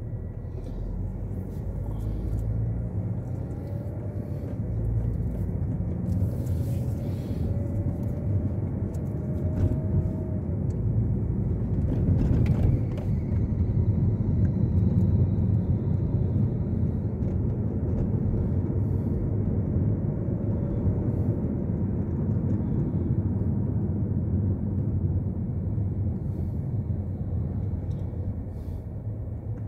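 Car engine and road rumble heard from inside the cabin while driving. It gets louder toward the middle, with the engine note rising and falling faintly, and eases off near the end.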